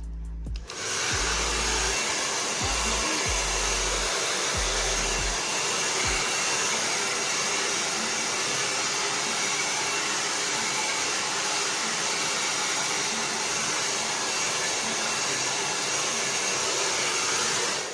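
Handheld blow dryer blowing air steadily on hair, coming on about a second in and switching off at the end.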